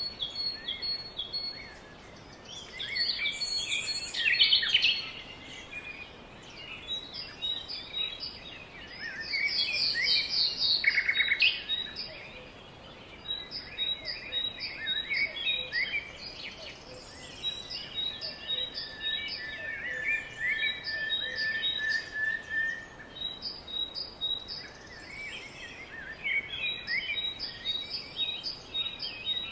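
Several songbirds singing at once in woodland, their songs overlapping: quick runs of repeated high chirps, a fast trill, and one long steady whistle near the middle.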